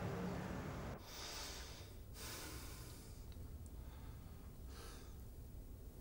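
A low hum cuts off abruptly about a second in, followed by a man's slow, deep breaths: three soft, audible breaths through the nose, the last near the end.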